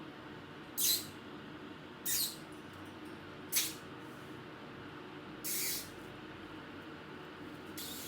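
Green ringneck parrot giving five short, shrill chirps a second or two apart, the last one gliding down in pitch near the end.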